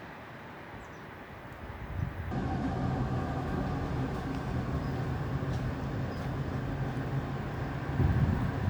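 Rough wind-like noise, then from about two seconds in a louder, steady hum of a motor vehicle's engine, which swells near the end.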